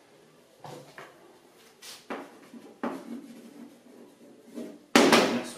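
Chalk writing on a blackboard: faint scattered taps and scrapes, then a loud sudden sound lasting about half a second near the end.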